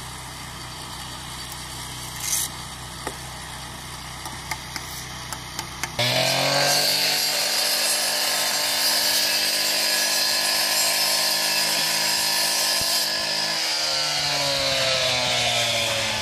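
For about six seconds, a low steady engine hum with a few light trowel taps. Then, suddenly much louder, a gas-engine masonry saw runs, its blade whining high as it cuts concrete block. The whine eases slightly lower near the end.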